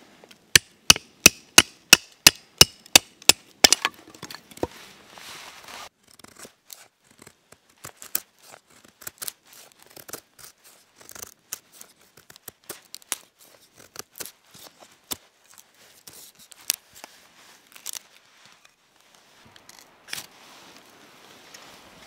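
Bushcraft knife working dry kindling wood: first about a dozen sharp, evenly spaced knocks, about three a second, as the blade is driven into a stick. Then a run of irregular scrapes, clicks and small snaps as the knife shaves curls off a feather stick.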